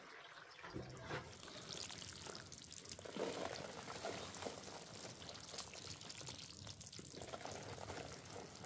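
Plaster powder being scattered by hand into a basin of water and mixed in, a continuous grainy fizzing of powder settling into the water, after water is poured from a plastic jerrycan into the basin at the start.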